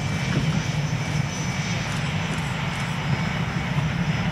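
Twin jet engines of a Blue Angels F/A-18 Hornet running steadily as it rolls along the runway: a steady rumble with a thin high whine over it.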